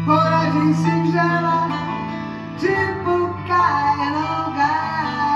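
Live song played on an electric keyboard, with a woman's voice singing over it.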